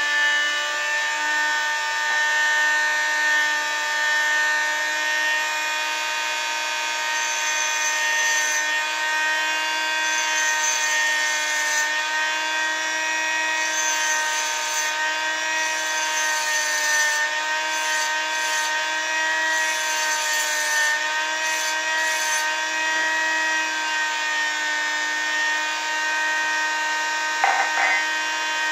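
Diamond-tool engraving machine running, its spindle motor giving a steady whine. There is a brief click near the end.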